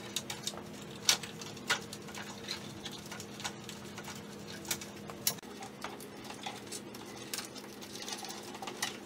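Irregular sharp clicks and taps from hands and tools working the plastic grille reinforcement and its fasteners on a Jeep front end, over a steady low hum that weakens about halfway through.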